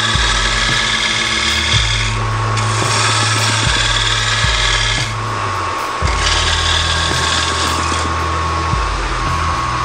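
Wood lathe spinning a cherry-wood piece, its motor giving a steady whine, while a hand-held tool or abrasive is pressed against the turning wood, making a hiss. The hiss lets up briefly three times, about two, five and eight seconds in, as the contact is eased off.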